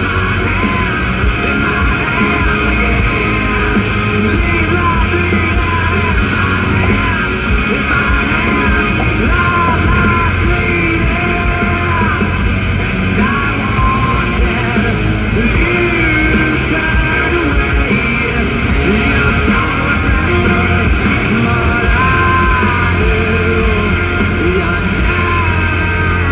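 Loud rock music with a shouting, singing voice, playing on steadily.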